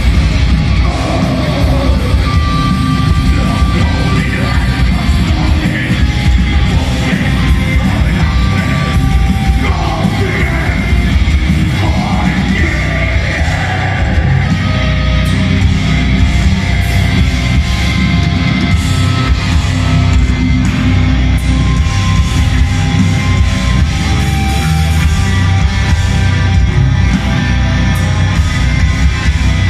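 Black metal band playing live and loud: distorted electric guitars and drums, with yelled vocals over them in the first half.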